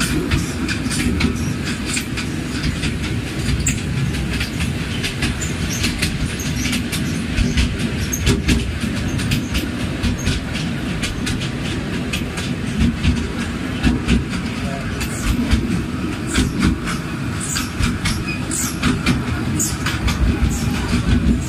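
Small tourist train's open carriage in motion: a steady low rumble with frequent clattering rattles.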